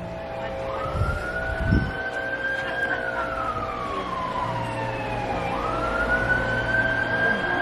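Emergency vehicle siren wailing, its pitch slowly rising and falling, with about one and a half sweeps.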